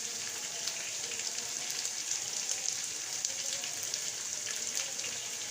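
Onions, whole spices and ginger-garlic paste sizzling in hot soybean oil in a pan as the masala is cooked down. It is a steady hiss with scattered small crackles.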